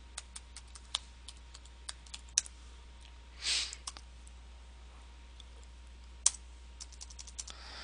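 Typing on a computer keyboard: irregular runs of quick key clicks with pauses between them, over a steady low hum. A short soft hiss comes about three and a half seconds in.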